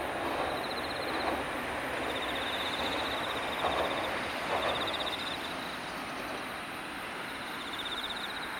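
Tarumi Railway Hymo 330 diesel railcar rumbling across a steel truss bridge, fading as it moves away, with a couple of louder knocks about midway. A short, high chirping trill repeats every second or two.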